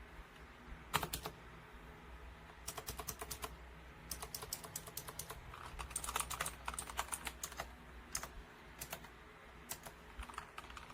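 Typing on a Nubwo Termination X30 mechanical gaming keyboard: short runs of key clicks with brief pauses between them.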